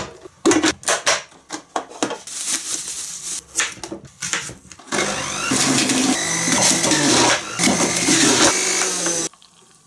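Plastic clicks and knocks as juicer parts are fitted and fruit is chopped, then a Polaris centrifugal juicer's motor starts about halfway through and runs steadily as apple and carrot pieces are pushed down the feed tube, cutting off shortly before the end.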